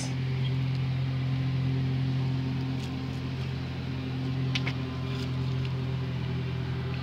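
A motor running with a steady low hum, even and unchanging, with a few faint light clicks about halfway through.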